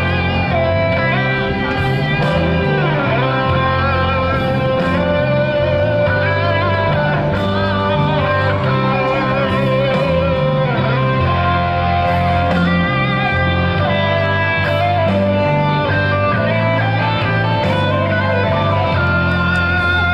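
Guitar music, electric guitar over a moving bass line, playing steadily throughout.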